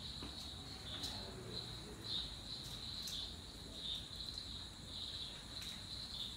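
Faint, steady, high-pitched insect trilling that pulses unevenly, with a few soft clicks.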